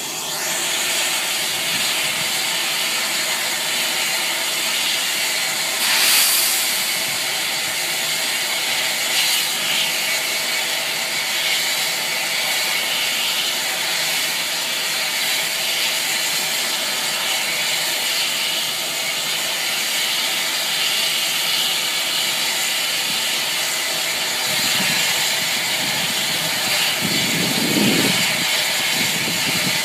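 Bulleid Battle of Britain class steam locomotive 34070 Manston standing with steam hissing steadily, with a short louder gush of steam about six seconds in. Near the end, a heavier low rush of steam as steam billows out around the cylinders and wheels.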